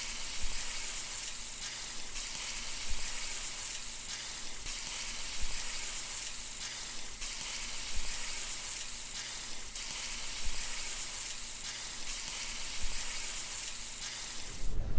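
Seasoning oil sizzling steadily on the hot steel top of a propane griddle as it is brushed over the surface, swelling slightly every couple of seconds.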